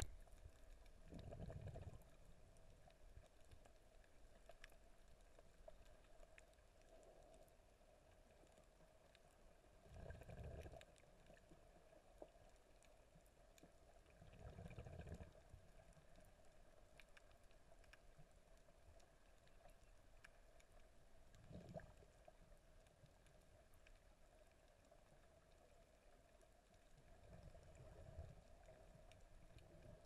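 Near silence, broken every few seconds by a faint, muffled low rumble lasting about a second, over a faint steady hum.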